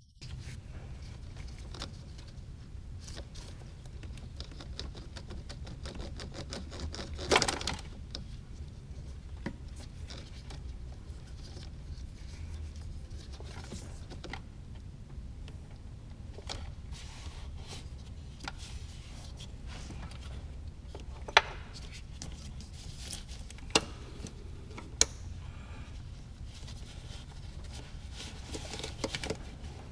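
Scattered clicks, knocks and scrapes of tools and engine parts being handled in a car's engine bay, over a steady low hum. A louder scrape comes about seven seconds in, and three sharp clicks in the last third.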